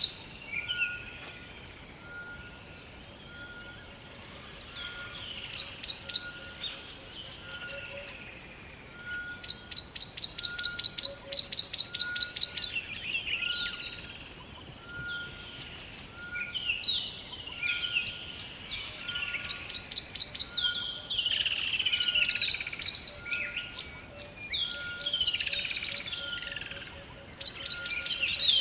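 Several songbirds singing together: rapid high trills lasting a second or two that recur every few seconds, with many short falling chirps in between. Underneath runs a steady series of short lower single notes, a little more than one a second.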